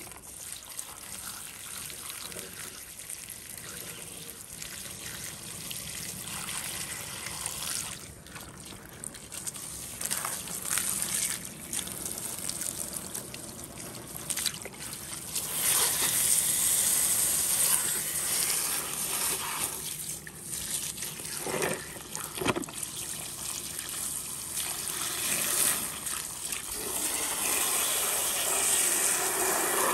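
Water trickling and splashing, getting louder about halfway through, with a few short sharper splashes.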